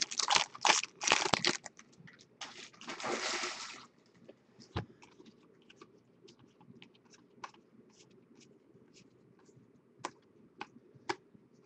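Foil wrapper of a baseball card pack crinkling as it is pulled open, with a second burst of crinkling a few seconds in. After that, only sparse light clicks of trading cards being flipped through by hand.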